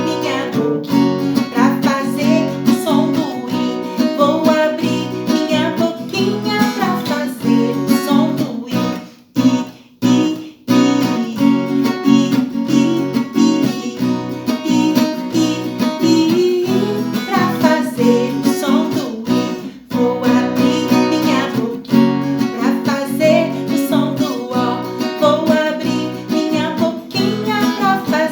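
Strummed acoustic guitar accompanying a voice singing a children's song, continuous throughout with only brief dips between phrases.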